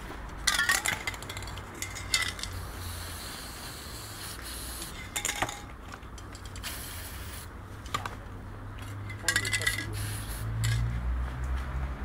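Metal aerosol spray-paint cans clinking and rattling against each other as they are picked up and handled, with ringing clinks about half a second in, near two seconds, and again around nine to ten seconds. Between them the spray can gives a few short hisses.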